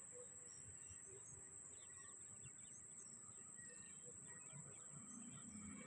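Near silence: faint outdoor ambience with small birds chirping faintly now and then.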